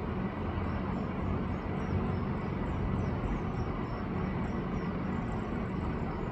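Steady outdoor background noise with a low rumble, and faint, short high-pitched chirps scattered through it.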